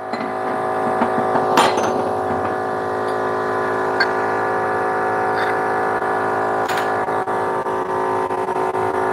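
A steady machine hum with several pitches held level. A few light metallic clicks, the clearest about a second and a half in and near the end, come as worn door-hinge parts are handled.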